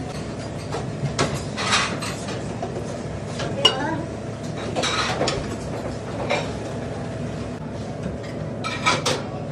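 Kitchen background: a steady hum with scattered clinks of dishes and utensils, the sharpest one about three and a half seconds in.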